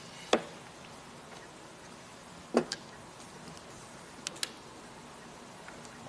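Mahjong tiles clicking as they are drawn and set down on the mahjong table: a few short, sharp clacks, the loudest a quick double click about two and a half seconds in.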